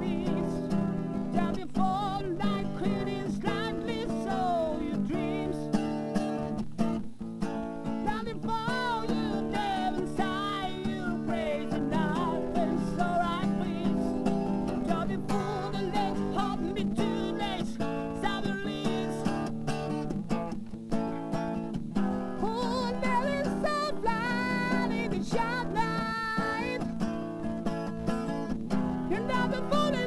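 Guitar music led by an electro-acoustic guitar: a melody that slides and bends between notes over steady sustained low chords.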